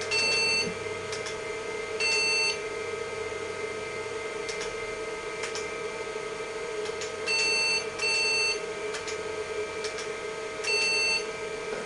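IBM PC XT internal speaker beeping five times: short, flat electronic beeps about half a second each, the fourth right after the third. Keyboard keys click between them, over the steady hum of the running computer.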